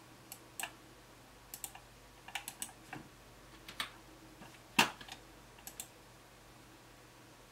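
Scattered clicks from a computer input device used to navigate menus, about a dozen at uneven intervals, some in quick pairs, the loudest a little under five seconds in.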